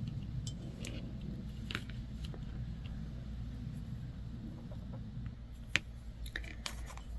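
Faint, scattered light clicks of a bamboo circular knitting needle and wool knitting being handled and set down on a table, over a steady low hum.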